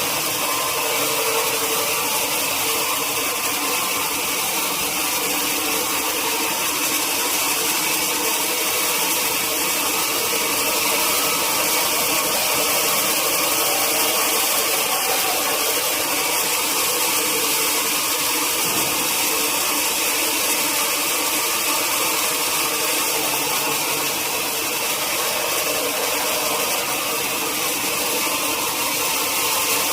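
Sawmill machinery running steadily: a loud, even mechanical noise with a strong high hiss that does not change throughout.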